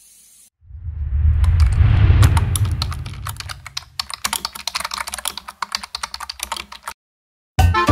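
A loud low rushing rumble, followed by several seconds of rapid keyboard-typing clicks, a typing sound effect. Music starts right at the end.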